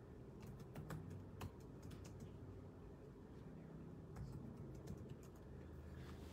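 Faint typing on a computer keyboard: scattered key clicks in short runs, busiest about a second in and again around four to five seconds in.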